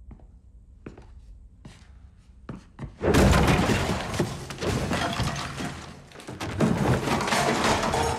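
A few sparse footsteps. Then, about three seconds in, a sudden loud crash starts several seconds of dense smashing and clattering, like things being knocked over and broken.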